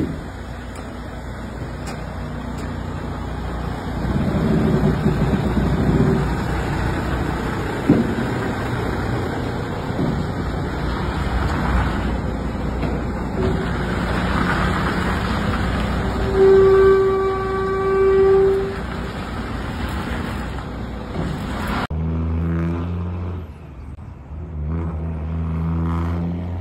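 Semi-truck running with steady engine and road noise, and a vehicle horn sounding for about two seconds about two-thirds of the way through. The sound cuts off abruptly near the end and gives way to a short musical sting.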